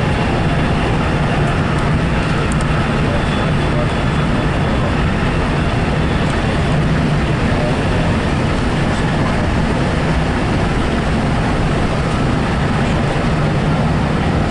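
Passenger train running steadily, heard from inside the coach: an even rushing noise with a low hum that holds level throughout.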